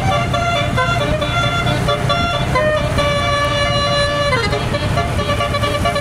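A tour bus's 12-note telolet horn playing a melody, stepping from one held note to the next, with a long note about halfway through that slides down in pitch. The bus engine's low rumble runs underneath.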